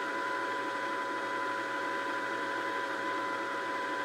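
Janome JW8100 sewing machine winding a bobbin: its motor runs with a steady, even whine at a constant speed, a little slower than a bobbin winder should go.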